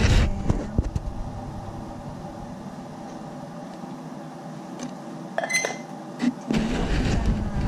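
Handling noise from a camera being moved and set in place, rumbling and knocking on its microphone at the start and again near the end. In the quieter stretch between there is a faint steady hum and a short metallic ring about five and a half seconds in.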